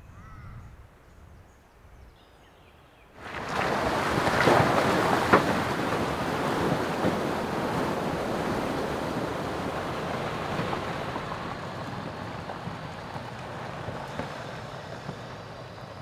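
Water rushing and splashing as a 4WD wades through a flowing, flooded creek crossing. The rush starts suddenly about three seconds in and slowly fades.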